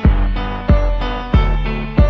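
Background pop music: sustained keyboard chords over a steady kick drum beat, about three beats every two seconds, with the drum coming in at the start.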